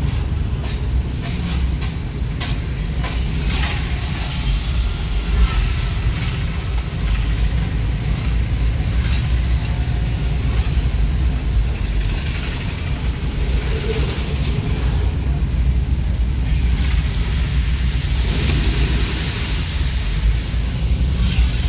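A vehicle driving along a street: a steady low engine and road rumble with street traffic around it.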